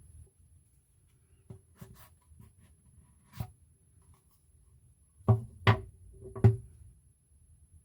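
AirPods 4 box and packaging being handled on a surface: a few light clicks and taps, then three louder knocks close together about five to six and a half seconds in.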